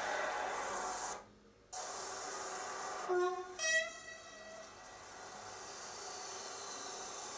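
Freight train's locomotive horn sounding two short blasts about three seconds in, the second higher-pitched than the first, as the train approaches along the street. Steady road traffic noise runs underneath, with a brief dropout of the sound about a second in.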